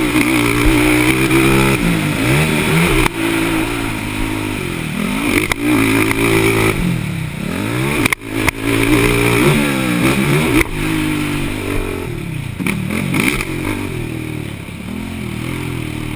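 Motocross race quad (ATV) engines revving, pitch climbing and falling again and again with throttle and gear changes, more than one engine at times overlapping.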